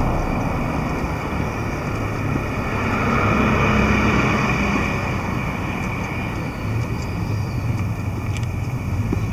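City street traffic: cars running past on the road alongside, with a louder pass about three to four seconds in.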